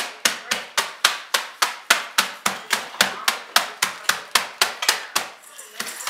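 Oreo cookies being crushed in a zip-top plastic bag on a wooden board: a pounder strikes the bag in steady, even knocks, about four a second, and stops about five seconds in.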